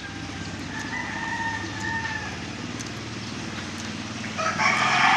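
A rooster crowing twice: a fainter crow about a second in, then a much louder, harsher crow near the end.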